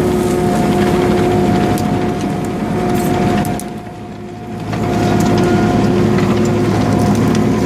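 Excavator engine running steadily with a constant whine over it, easing off for about a second around the middle before coming back up, with scattered light knocks.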